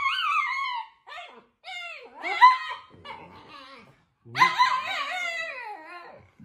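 A small husky-type dog vocalising back in a run of high, wavering yowls and whines that rise and fall in pitch. They come in several phrases with short pauses, the longest near the end. It is the dog's reaction to being barked at.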